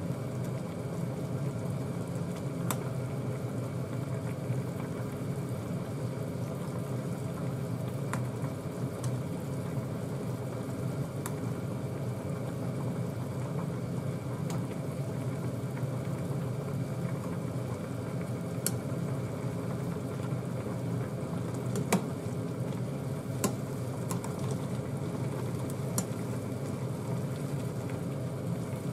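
Saucepan of stew vegetables boiling steadily, with a few light clinks of a metal ladle against the pot as the foam is skimmed off.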